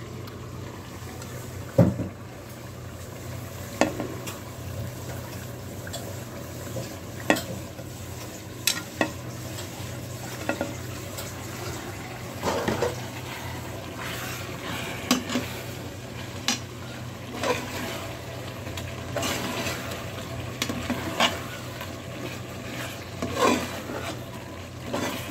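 A metal ladle stirring a thick mutton and tomato masala with fresh coriander and mint in an aluminium pressure cooker. There are irregular clinks and scrapes against the pot, with a sharp knock about two seconds in, over a steady low hum.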